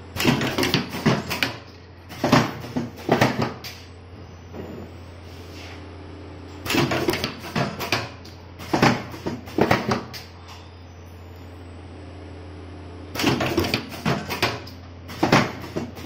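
Semi-automatic wire cutting machine running through its cycle: short bursts of rapid metallic clacking and clunking from its moving tooling, in pairs about two seconds apart, the pair repeating about every six and a half seconds, over a steady low hum.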